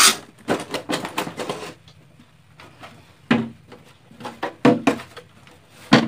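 Plastic rear housing of a Samsung 21-inch slim CRT television being worked loose and pulled off its chassis: a string of plastic knocks, clicks and scrapes, in clusters near the start and about a second in, then single knocks about three seconds in, nearly five seconds in and near the end.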